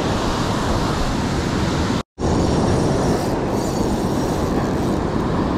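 Breaking ocean surf and wind buffeting the microphone: a steady rushing noise with a strong low rumble. It drops out to silence for a moment about two seconds in.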